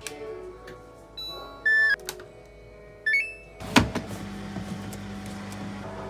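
Samsung front-loading washing machine's control panel beeping as its buttons are pressed: a run of short beeps, a louder held beep, then a quick rising three-note beep. A clunk follows as the detergent drawer is pulled open, then a steady low hum.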